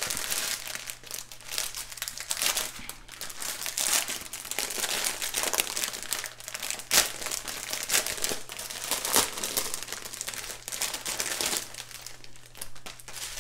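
Clear plastic bags of round diamond-painting drills crinkling as they are handled, an irregular run of crackles with a few sharper snaps.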